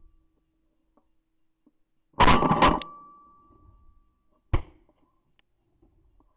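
Two shotgun shots, about two seconds in and again about four and a half seconds in. The first is a long, loud blast that fades over about a second; the second is a shorter, sharper bang.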